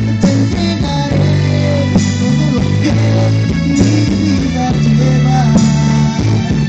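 Loud music over a party sound system, with guitar and a steady bass line.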